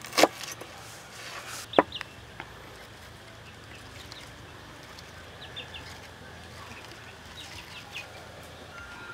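A cleaver chops twice through onion onto a wooden cutting board within the first two seconds. After that there are a few faint, short bird calls in the background.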